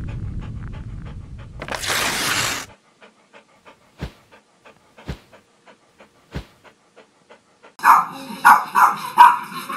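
Dog-panting sound effect: short, quick breaths about three or four a second, with three low thumps in between. It follows a rumbling whoosh at the start. Near the end, louder dog sounds begin.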